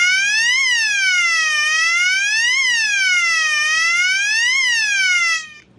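Gentex GOS-24-15/75WR fire alarm horn strobe sounding its 'Siren' tone (600/1200 Hz) on high volume: a loud wail that rises over about a second and falls over about a second, three times, then cuts off suddenly near the end.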